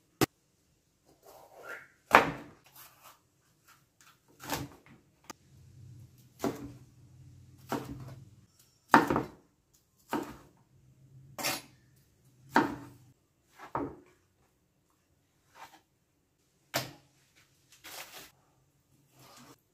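Chef's knife knocking on a plastic cutting board as bell peppers are cut, single separate knocks about once a second, mixed with the odd clunk of a bowl or food being set down on the board.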